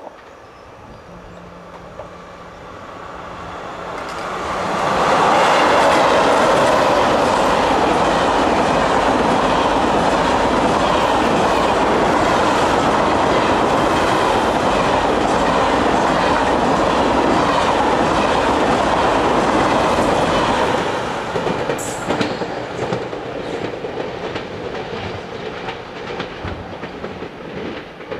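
Two coupled TGV Lyria high-speed trainsets passing at speed. The rush of wheels and air swells over a few seconds and holds loud and steady for about fifteen seconds, then fades with a quick run of wheel clicks as the rear of the train moves away.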